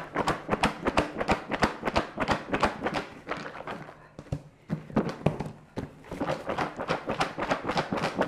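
Caramel-coated popcorn rattling and tumbling inside a lidded plastic container as it is shaken hard to coat the popcorn evenly. Two bouts of quick rattling, with a short lull about four seconds in when the container is set down.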